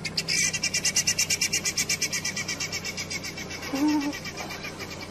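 A rapid, rhythmic pulsing animal call, about nine evenly spaced pulses a second, loudest about a second in. A short, lower call sounds briefly near the four-second mark.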